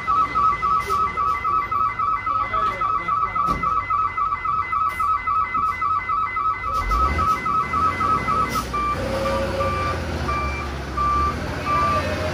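A dump truck's reversing alarm sounding a fast, warbling run of beeps, which about two-thirds of the way through changes to slower, evenly spaced beeps. The truck's diesel engine comes in as a louder low rumble about seven seconds in as the truck moves.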